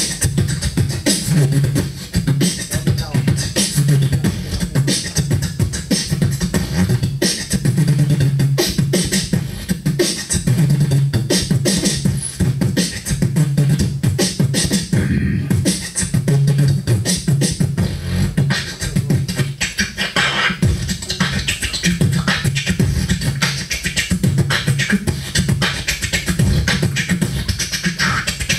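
Beatboxing into a handheld microphone: rapid percussive mouth sounds in a steady, driving rhythm, with a low pulsing bass tone underneath.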